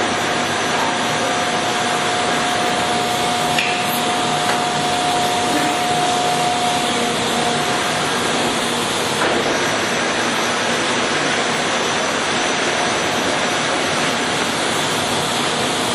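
Monarch 20CM heavy-duty engine lathe running steadily with its spindle turning, a dense machine hum with a steady tone in it. About seven seconds in, the tone drops to a lower pitch.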